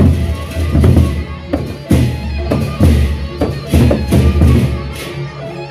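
Gendang beleq ensemble playing: the large Sasak barrel drums are beaten with a stick and the hand in a driving rhythm of heavy low strokes with bright crashes on top. The strokes thin out near the end.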